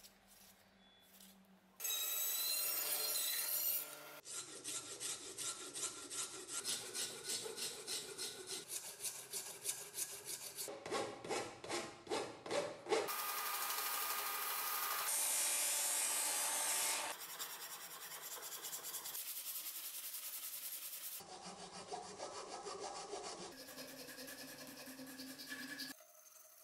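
Rasp and file strokes on a wooden ash axe handle, rubbing in quick rhythmic passes of about two a second, cut together with stretches of a belt sander grinding the wood steadily. Each clip starts and stops abruptly.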